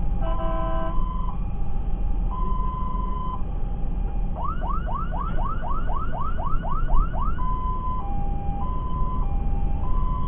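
Fire engine's siren heard from inside the cab: a two-tone hi-lo wail switching pitch about once a second, changing to a fast rising yelp of about three sweeps a second for around three seconds midway, then back to the two-tone. A short burst of several tones together sounds near the start, over the steady low rumble of the truck's engine and tyres.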